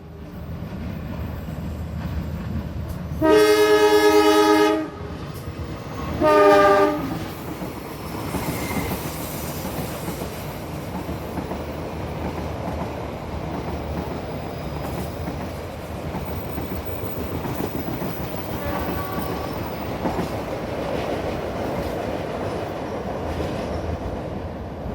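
Diesel locomotive horn sounding a long blast about three seconds in and a short one about two seconds later, with a faint third blast later on. Under it runs the steady rumble and clatter of a passenger train passing on the rails.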